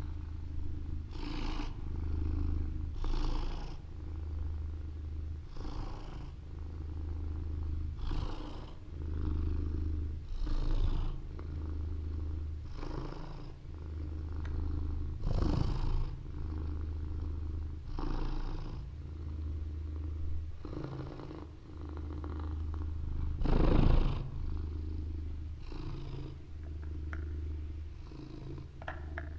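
Fossa purring: a steady low rumble in long strokes, with a breathy rasp on each breath about every two seconds. Two breaths stand out as louder, one about halfway through and one later on.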